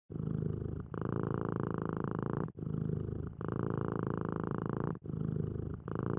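Cat purring close up, in an even rhythm of breaths about every two and a half seconds, each with a short quieter phase and a longer louder one.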